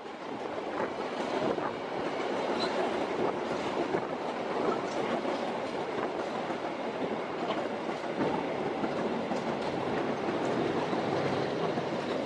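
The coaches of the KA Ranggajati passenger train roll past at close range: a steady rolling noise of steel wheels on the rails, with occasional faint wheel clicks over the track.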